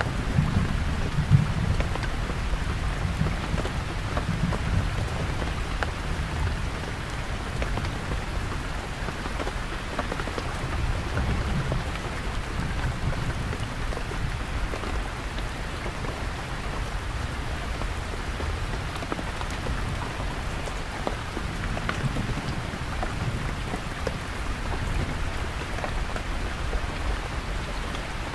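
Heavy rain drumming steadily on a canvas tent, with low rumbles of deep distant thunder that are strongest in the first few seconds and return more faintly twice later.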